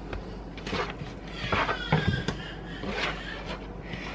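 Pretzel dough being pulled apart and handled on a countertop, with a few light knocks on the counter and a faint voice in the background around the middle.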